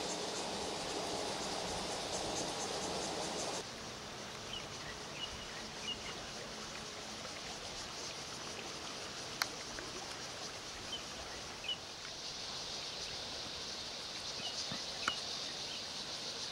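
Water rushing steadily down a concrete-walled irrigation canal; about three and a half seconds in it cuts off to a quieter open-air ambience with scattered short bird chirps, a faint high insect hiss and a couple of sharp clicks.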